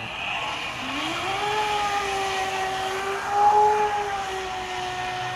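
Model RC jet-drive outboard boat's motor whining, rising in pitch about a second in as it speeds up and then running steady, with water rushing under the hull and a brief louder moment midway. A grating from a damaged motor bearing is present.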